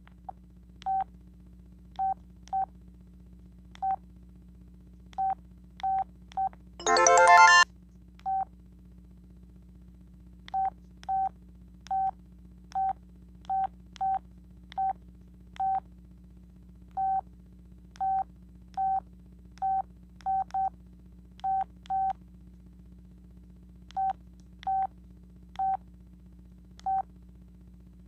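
Sanyo VI-2300 cell phone's key beeps: short identical beeps at irregular intervals as its buttons are pressed. About seven seconds in, a ringtone plays for under a second and is cut off. A faint low hum runs underneath.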